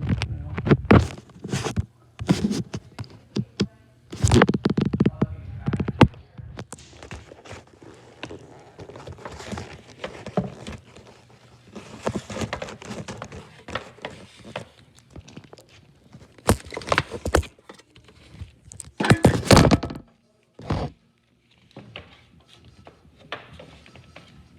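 Repeated knocks, thunks and clatter, with scraping in between, from hands working on a gas furnace's casing; the loudest knocks cluster in the first few seconds and again about two-thirds of the way in.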